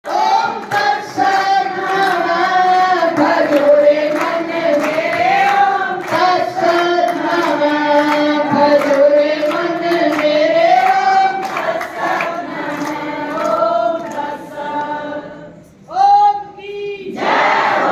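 A group of voices sings a devotional chant together in long, slowly gliding notes. Near the end it breaks off into a short shouted call, then a loud shout from the whole group: a jai ghosh, the victory cry raised after a Hindu yajna.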